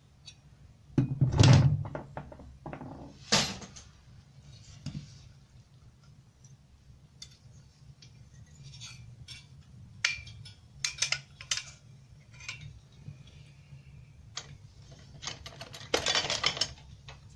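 Metal parts of a microwave-oven magnetron, a steel magnet bracket and a finned cooling block, being handled and set down on a wooden workbench: a heavy clunk about a second in, then scattered clicks and clinks and a scraping rustle near the end, over a low steady hum.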